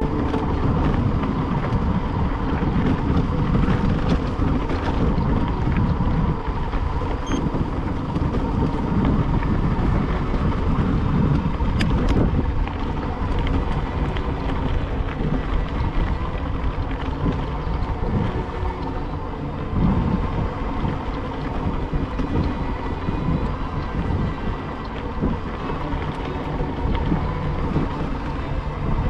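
Wind buffeting the microphone of a camera on a moving bicycle, with a steady low rumble from the ride.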